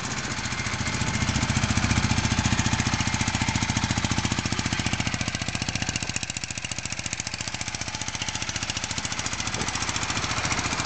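1982 Honda Hondamatic motorcycle's parallel-twin engine idling with a steady, rapid pulsing beat.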